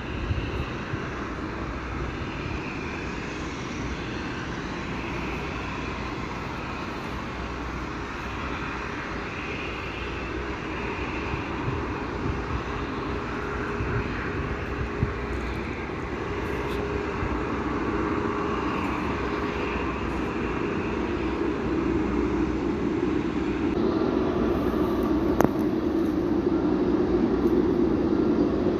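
Boeing 747 jet engines running: a steady jet rumble and hiss that grows gradually louder, with a single sharp click near the end.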